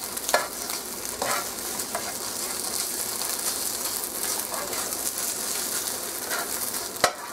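Thawed spinach and minced garlic sizzling in a non-stick skillet while a spoon stirs and scrapes through them, with a few separate scraping strokes and one sharp tap on the pan about seven seconds in.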